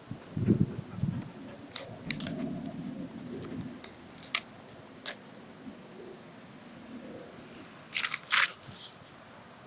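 Dog scratching at the rough bark of a fallen tree trunk: scattered sharp scrapes and clicks of claws on bark, with the loudest burst of scratching about eight seconds in.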